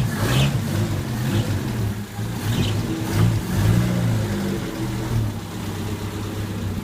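Toyota 1000 estate's small four-cylinder engine revving up and down as the car is driven slowly forward, the pitch rising and falling several times.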